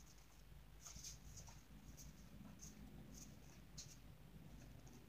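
Faint handling of paper trading cards: about eight light rustles and ticks, spaced irregularly, over near silence.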